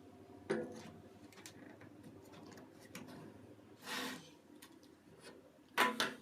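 A few light knocks and clicks of objects being handled, with a brief rubbing or sliding sound about four seconds in and a sharper double knock near the end.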